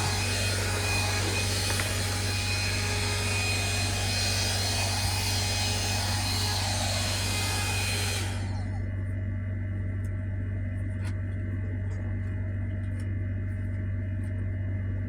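Hair dryer blowing: rushing air over a steady low motor hum. A little past halfway the rushing air cuts off abruptly, leaving the low hum and a few faint ticks.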